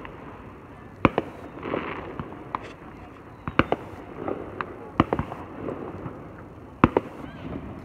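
Fireworks going off: four sharp bangs spread over several seconds, the loudest near the end, with softer pops and rumble between them.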